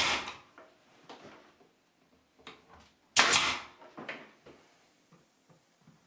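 Pneumatic brad nailer firing twice, about three seconds apart, each shot a sharp bang with a short hiss of air, nailing a thin cedar plank to the wall. Fainter knocks of the plank being handled come in between.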